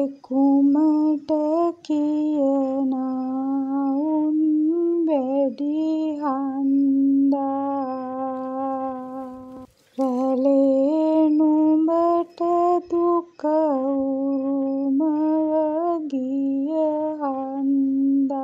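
A solo voice sings a slow Sinhala kavi, a traditional chanted verse, in long held notes that bend and waver at the ends of phrases. There are short breaks between the phrases.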